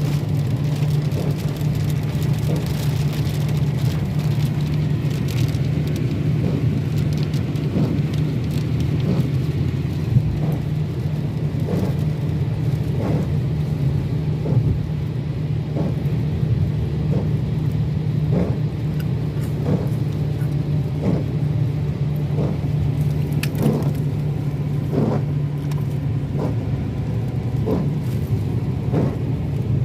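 Heavy rain on a car, heard from inside the cabin over the car's steady low drone. From about halfway through, faint regular knocks come roughly once a second.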